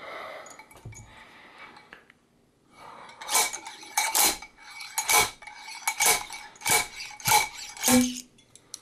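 Slide hammer on a blind-hole bearing puller being jerked back against its stop: about seven sharp metallic clanks with a ringing tone, roughly one a second, pulling a worn bearing out of a treadmill's rear roller. Quieter handling of the puller comes before the clanks.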